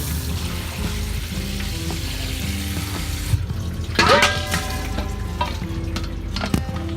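Water running from a kitchen tap into a sink for about three seconds, then shut off, followed by a ringing metallic clink about four seconds in and a few lighter clicks. Background music plays throughout.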